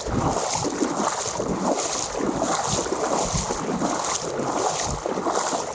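Wind buffeting the microphone, with water washing along the hull of a boat under tow.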